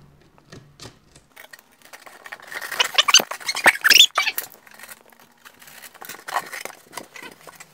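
Polystyrene foam board squeaking and creaking as it is rubbed and pushed against the other foam panels, with scratchy rubbing and small clicks; a cluster of sharp squeaks comes about three to four seconds in.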